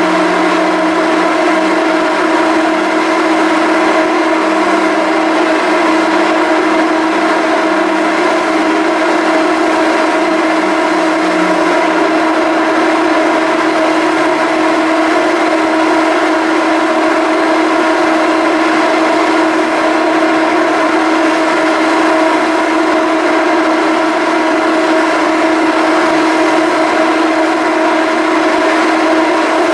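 Salish-class ferry's engines running steadily, a loud constant drone with a fixed humming pitch; a lower note in the drone drops slightly about twelve seconds in.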